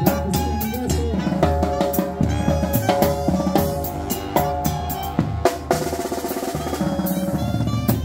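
Oaxacan banda (brass band) playing a drum-heavy passage: frequent sharp snare, timbal and cymbal hits and bass-drum beats over sustained brass and clarinet notes.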